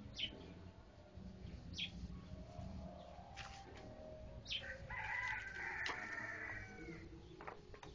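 A rooster crows once, about five seconds in, in one call of about two seconds. Short high chirps that fall in pitch come and go around it.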